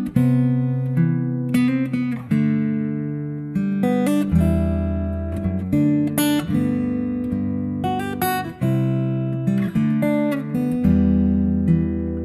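Background music: acoustic guitar picking and strumming, each note ringing and fading before the next.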